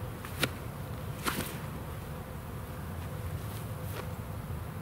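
Sidearm throw of a Lone Star Harpoon golf disc: a sharp snap about half a second in, then a short swish about a second later, over a steady low drone.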